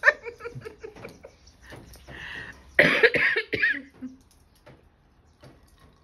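A person coughs once, about three seconds in, a loud rough burst lasting about a second, with a few faint clicks before and after.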